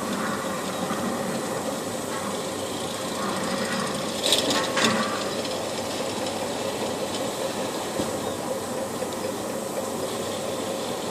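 Village outdoor ambience: a steady mechanical running hum with hiss, broken by two short sharp noises about four and a half seconds in.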